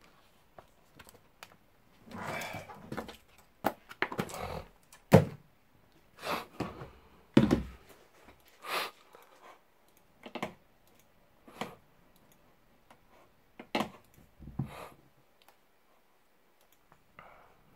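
Irregular knocks, taps and brief rustles of things being handled on a wooden desk, with two louder low thumps about five and seven and a half seconds in.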